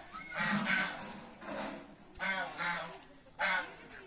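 Repeated honking bird calls, short and pitched, coming about once a second and sometimes in quick pairs.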